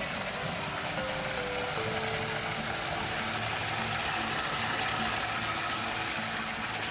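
Water pouring in a steady stream from a PVC tap into a bucket, splashing onto the water already in it, with faint background music underneath.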